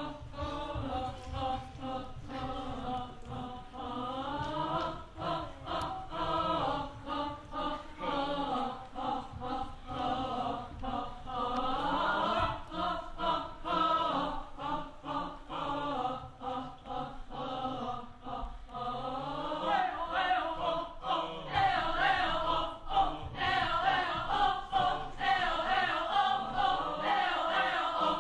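A group of men and women singing together unaccompanied in a chant-like song, several voice lines wavering around one another. It gets louder about twenty seconds in.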